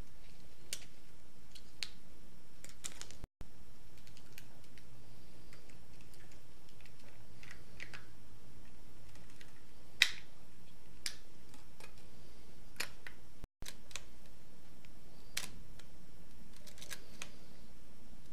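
Scissors snipping 35mm film, then the clicks and snaps of loading it into a Minolta SR-T 102 film SLR: scattered sharp clicks over a steady hiss, the loudest about ten seconds in. The sound cuts out to silence twice, briefly.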